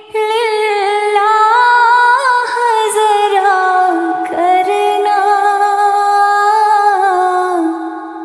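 A woman singing a naat (Urdu devotional song) unaccompanied. One long sung phrase with gliding ornaments starts abruptly and fades out near the end.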